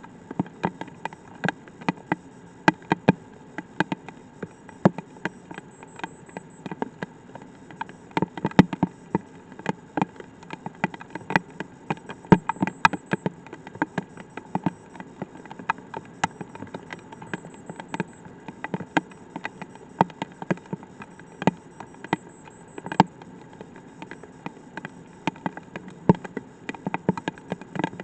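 Light rain striking a weather probe: drops tapping irregularly, several sharp taps a second over a faint hiss.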